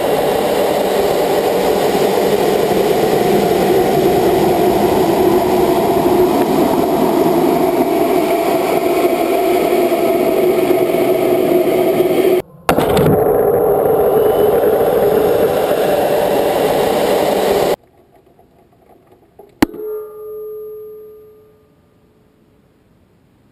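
Rocket motor of an amateur space rocket burning during its climb: a loud, steady rushing noise with a brief dropout near the middle, which cuts off abruptly about 18 seconds in. After the cut it is quiet except for a sharp click followed by a short ringing tone that fades within about two seconds.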